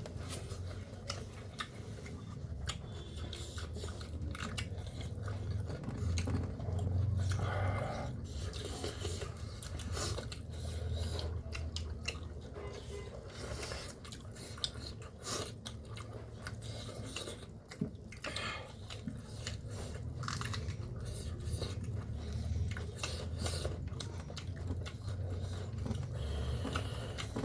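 A person chewing and biting food close to the microphone, with many small crunchy clicks from the mouth.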